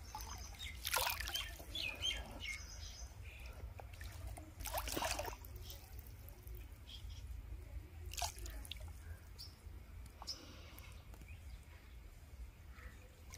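Water in a small concrete farm tank moving quietly: faint lapping with a few small splashes and drips, the clearest about a second in, near five seconds and near eight seconds, over a steady low rumble.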